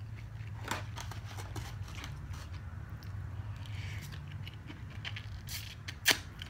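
Close-up eating sounds: chewing a mouthful of chow mein, with scattered clicks and scrapes of a plastic fork in a foam takeout box. A sharp click near the end is the loudest. A steady low hum sits underneath.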